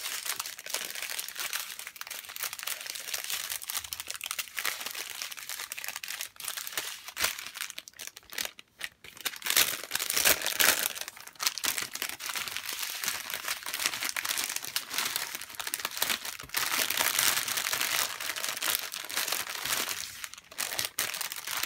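Plastic crinkling and rustling as a diamond painting canvas in its protective plastic film is handled and folded back up for its packaging. The rustle is uneven, swelling loudest about ten seconds in and again around seventeen seconds.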